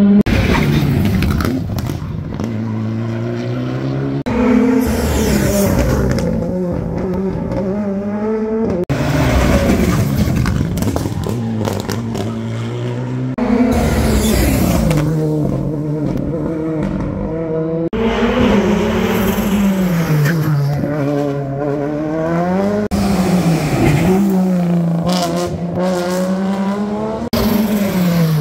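Rally car engines revving hard on a street stage, the pitch climbing and dropping again and again with gear changes and lifts off the throttle. The sound comes in several short takes that break off abruptly, one after another.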